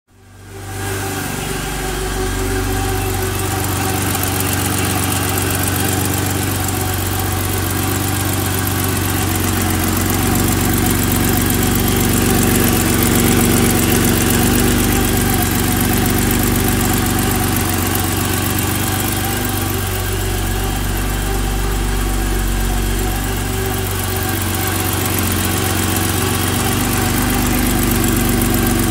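BMW 325e's M20 2.7-litre straight-six idling steadily with a valve ticking from the top end. The valves have just been adjusted, and the owner is unsure whether the ticking is normal.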